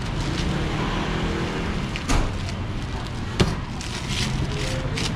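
Two sharp knocks of a cleaver, about two seconds in and again about three and a half seconds in, the second as the cleaver meets the plastic cutting board, over a steady rumble of market background noise with faint voices. Near the end a plastic bag crinkles.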